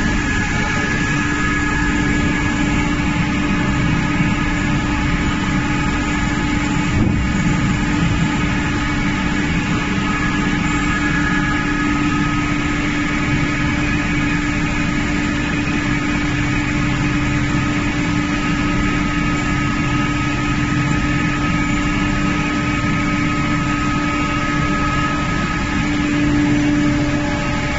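Yulong vertical ring-die pellet mill running under load, pressing activated carbon pellets: a loud, even machine drone with a steady low hum and fainter higher whines. One brief knock comes about seven seconds in.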